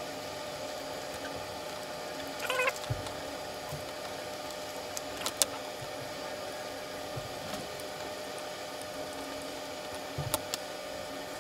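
Light clicks and taps of brass spacers and small screws being handled and fitted into an acrylic robot-car chassis plate, over a steady background hiss with a faint hum. Two sharp clicks stand out, about five seconds in and near the end. A short high-pitched wavering call sounds about two and a half seconds in.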